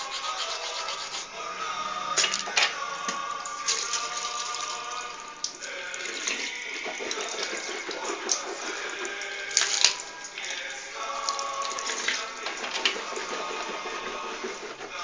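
Music playing over a steady rushing noise like running water, with a few sharp clicks.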